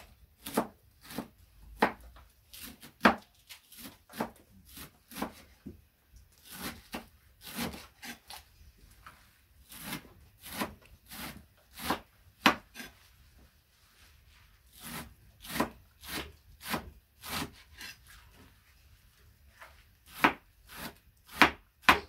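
Knife chopping pancar greens on a board: sharp, irregular knocks of the blade, roughly one or two a second, with a few short pauses.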